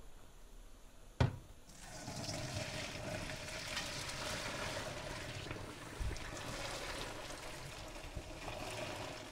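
A single knock about a second in, then a steady rush of water as the pasta's cooking water is poured from the pot into a strainer in the sink.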